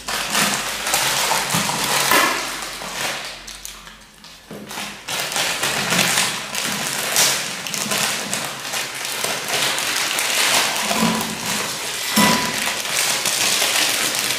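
Plastic Kokomi instant-noodle packets crinkling and tearing open by hand, with seasoning sachets ripped open over the bowls. A dense crackle of rustling, with a short lull about four seconds in.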